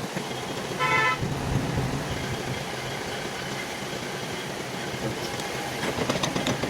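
A vehicle horn toots once, briefly, about a second in, over steady background noise. A run of light clicks follows near the end.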